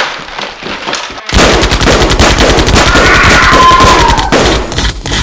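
Rapid automatic gunfire sound effects, a dense stream of shots that begins about a second in and keeps going.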